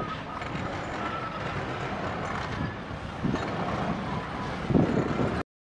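Heavy construction machinery (loaders and a backhoe) running with a steady diesel rumble, with two louder surges from the engines or equipment in the last couple of seconds. The sound cuts off suddenly just before the end.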